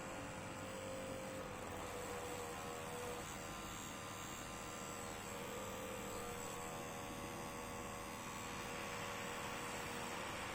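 Faulty GPU cooling fan of an Acer Nitro 7 AN715-51 laptop running with a steady hum and whining tones over an airy rush: a metal rubbing sound showing the fan is not running smoothly.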